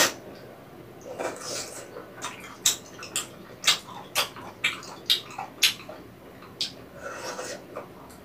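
Close-miked eating sounds of someone chewing soupy rabokki, ramen noodles and rice cakes: a string of short, sharp, wet mouth smacks from about two to six seconds in, with softer slurping noise about a second in and again near the end.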